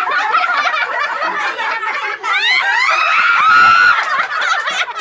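A group of people laughing, with one voice sweeping up into a high squeal held for over a second about halfway through.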